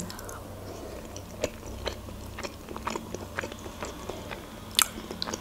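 A person chewing a mouthful of soft mayonnaise-dressed layered salad, close to the microphone, with scattered small mouth clicks and one sharper click near the end.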